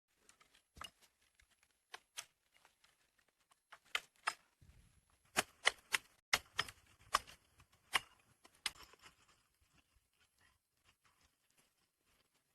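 A series of irregular, sharp knocks and clicks, sparse at first and thickest in the middle, then thinning to faint ticks near the end.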